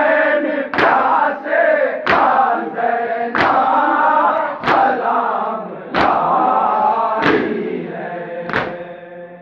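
Crowd of male Shia mourners chanting a nauha together, beating their chests in unison (matam) with a sharp collective slap about every 1.3 seconds, seven times. The chanting and beating fade near the end.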